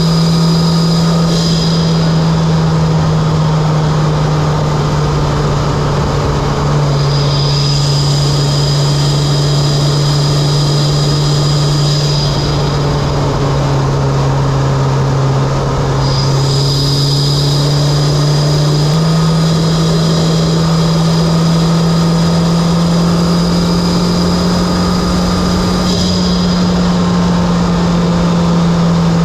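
Mitsubishi Lancer Evolution X's turbocharged 2.0-litre four-cylinder running at a steady cruise with a loud, even drone, its pitch stepping slightly up or down a few times as speed changes. A high whine comes and goes above it.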